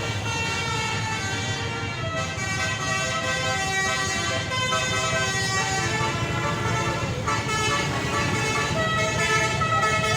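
Bus basuri (telolet) horn, a multi-trumpet air horn, playing a tune of held, overlapping notes that change every second or so, over the low rumble of the bus.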